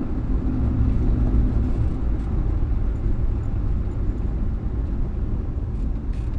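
1962 Morris Minor 1000's four-cylinder A-series engine and road noise heard from inside the cabin while driving, a steady low rumble.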